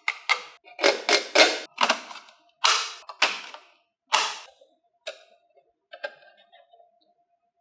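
Marbles clattering down a HABA wooden marble run. A quick, irregular string of loud clacks fills the first four or five seconds, then thins out into sparse, fainter ticks.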